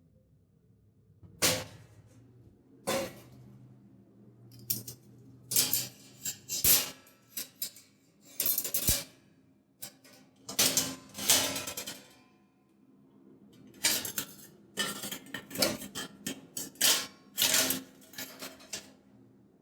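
Metal kitchen vessels clanking and clinking against each other as they are handled during washing: irregular knocks, some with a short ring, coming thicker and faster in the second half.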